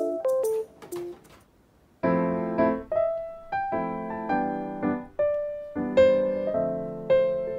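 Background piano music: a few light notes, a short pause just before two seconds in, then chords and melody notes resuming at a steady pace.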